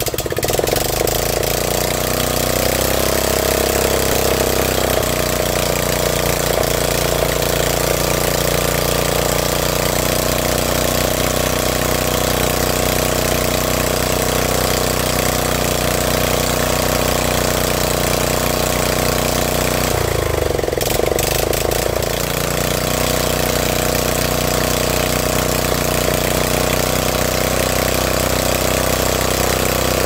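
Snapper riding mower's 11 hp Briggs & Stratton engine running steadily and loud just after being pull-started, sounding healthy. Its note briefly dips and recovers about twenty seconds in.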